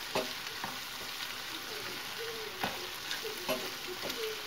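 Ground beef, mushrooms and onion sizzling in a granite-coated frying pan as a wooden spoon stirs them, with irregular scrapes and taps of the spoon against the pan over a steady hiss.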